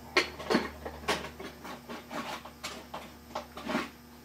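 Irregular light clicks, knocks and scrapes of small objects being handled, over a steady low hum.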